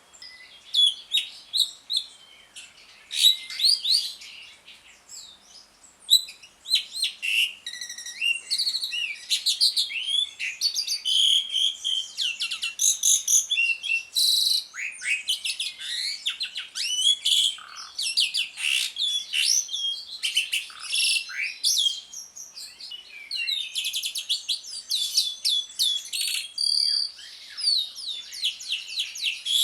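Jalak suren (pied starling) singing its rapid 'ngriwik' chatter, a fast tumble of high squeaks, whistles and rasping notes. There are a few loud calls in the first several seconds, then the chatter runs almost without a break.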